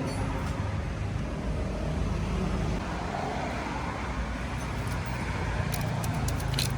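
Steady low engine rumble. A quick run of sharp clicks begins near the end.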